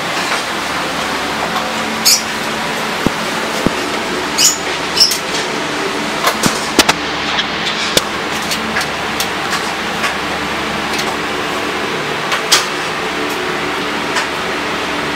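Screwdriver driving the screws that hold a computer power supply in the case: scattered small metal clicks and taps over a steady background hum.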